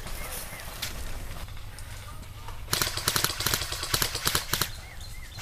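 Airsoft guns firing rapid bursts of sharp clicking shots. A few scattered shots come first, then a denser run of about two seconds starting around halfway through.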